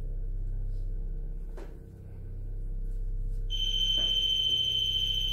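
REM pod paranormal detector set off and sounding its alarm: a steady high electronic tone that starts about three and a half seconds in and holds. A low steady hum runs underneath.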